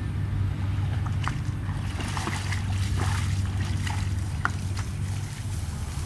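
Water buffalo wading in shallow muddy water: small splashes and sloshing, a few sharp drips scattered through, over a steady low rumble.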